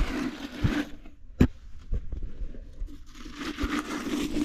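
Metal spade scraping and spreading wood ash over the ground of an outdoor fire place, a gritty scraping that pauses in the middle, with one sharp knock about a second and a half in.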